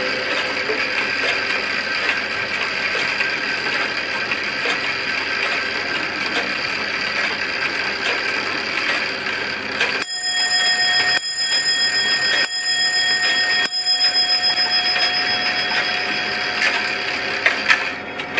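Striking train of a Black Forest 'Surrer' clock: a steady whirring, then about ten seconds in four strokes of the hammer on the clock's brass bell, about a second and a quarter apart, the bell ringing on after each.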